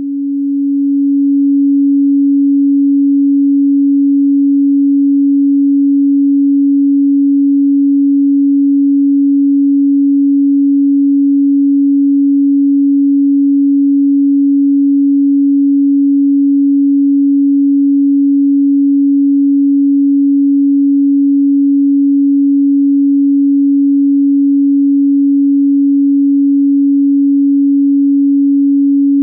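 A pure 280 Hz sine tone, electronically generated, held at one fixed pitch. It swells in over the first couple of seconds and then stays steady.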